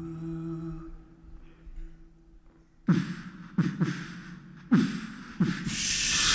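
A cappella voices: a held hummed chord fades out in the first second, then a beatboxer makes four deep kick-drum thumps, each dropping in pitch, and a hissing swell builds near the end.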